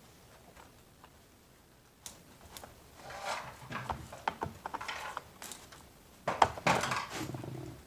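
Clicks, rattles and knocks of a Shindaiwa 490 chainsaw being reassembled by hand, as the bar, chain and side cover are fitted on. The sharpest knocks come about six and a half seconds in.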